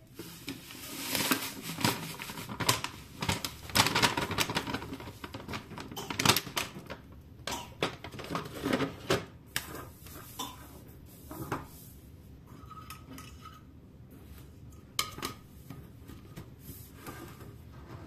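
Dishes and cutlery clinking and clattering as they are handled, a quick run of knocks and clinks that thins out to a few scattered knocks after about twelve seconds.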